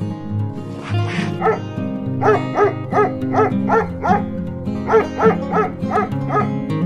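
Dog barking: short barks about three a second, in two runs with a brief pause in the middle, over background music.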